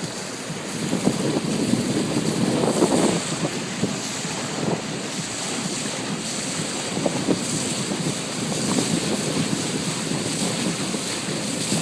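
Wind buffeting the microphone and water rushing past the hull of a Sea Ray 195 runabout underway, a rough noise that comes and goes in gusts.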